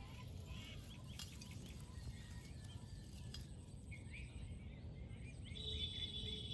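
Faint bird chirps over a low background rumble. A steady high-pitched tone starts near the end.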